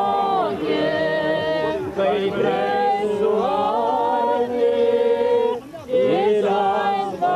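A group of people singing together without accompaniment, in long held notes, with a short break between phrases about six seconds in.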